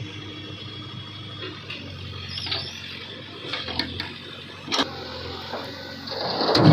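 Backhoe loader's diesel engine running steadily, with several sharp clanks, and a louder rush of engine and machine noise near the end.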